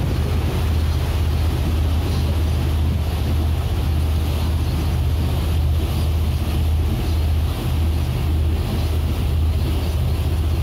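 Motorboat engine running steadily underway as a continuous low drone, with wind on the microphone and water rushing past the hull.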